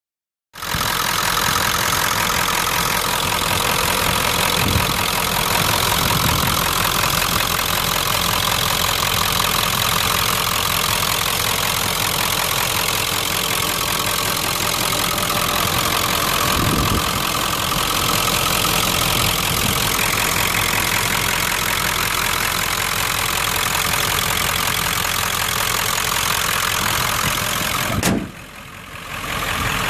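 1995 Ford F-250's 7.3-litre Powerstroke V8 turbo diesel idling steadily, heard with the hood open. The sound breaks off with a click near the end, then comes back.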